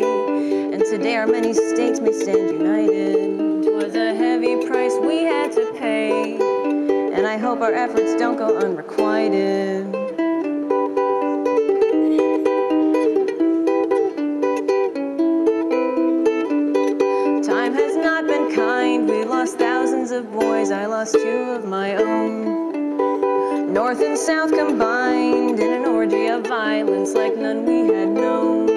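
Solo ukulele playing an instrumental passage of a song, a steady run of changing notes without a break.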